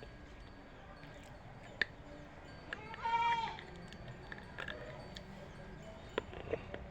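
A single animal bleat, about half a second long, about three seconds in, the loudest sound here. Around it come a few sharp crunchy clicks of slate pencil being bitten.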